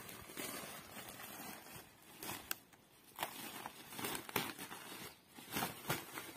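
A woven plastic sack rustling and crinkling in short, irregular bursts as it is handled and held open.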